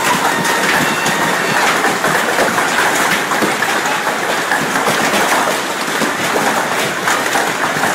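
Heavy hail falling on a trampoline mat and a plastic tarp: a loud, steady, dense clatter of countless small impacts.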